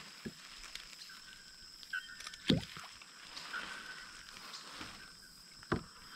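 A few hollow knocks and bumps on a plastic sit-on-top kayak as gear is handled aboard, the loudest a thud about two and a half seconds in, over faint outdoor background with a steady high whine.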